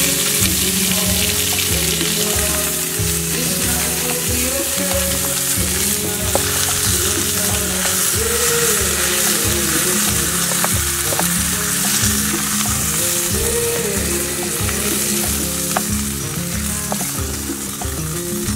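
Beef steaks sizzling steadily in fat in a skillet over a campfire, with background music underneath.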